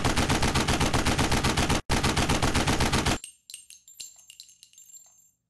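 Machine-gun fire sound effect: a rapid, even stream of shots with a short break near two seconds in, stopping about three seconds in. Scattered light metallic clinks with thin ringing follow and fade out.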